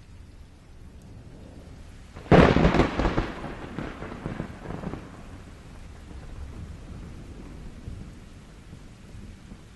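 A close thunderclap: a sudden sharp crack about two seconds in that breaks into a crackling rumble and dies away over a few seconds, with a low rumble of rain under it.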